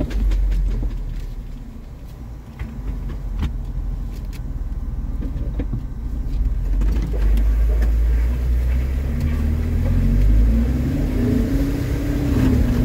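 Jeep Wrangler crawling over rough off-road ground, heard from inside the cab: a steady low engine and drivetrain rumble with scattered knocks and rattles from the body. Over the last few seconds the engine pitch rises and wavers as it pulls under load.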